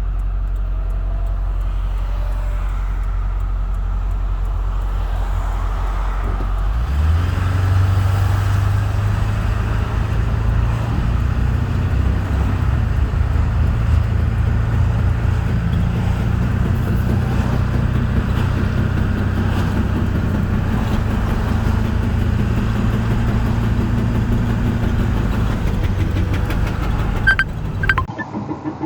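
2000 Ford F-250 pickup idling, then pulling away about seven seconds in and running steadily under way, its engine hum higher and louder. A few sharp clicks come near the end as the sound drops off.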